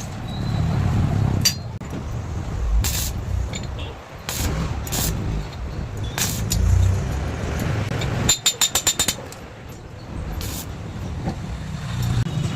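Metal-working knocks over a steady low rumble, with a quick run of about six ringing metallic taps a little past the middle.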